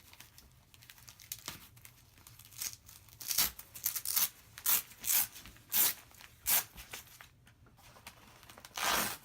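Hook-and-loop (Velcro) closures on a body-armor vest carrier being pulled apart, in a series of short rips with handling of the nylon fabric in between.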